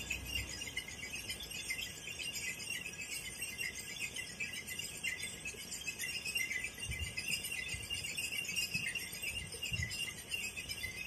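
Small birds chirping busily and without a break, many short chirps overlapping, with a couple of faint low bumps partway through.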